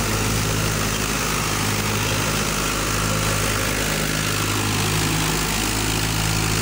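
Al-Ghazi tractor's diesel engine running steadily, driving a thresher off its power take-off, a low even hum under a continuous rushing noise from the threshing.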